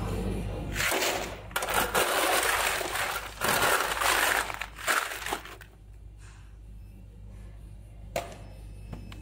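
Solid ice tubes clattering and crunching as a plastic basket of them is tipped out onto a heap of ice, in loud rattling bursts for about four and a half seconds. A single sharp click comes near the end.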